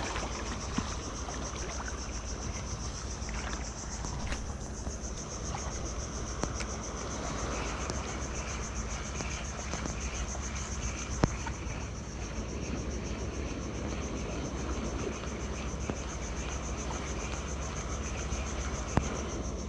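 Steady chorus of crickets or similar insects, a high fast-pulsing trill, over an even background hiss, with a couple of faint clicks.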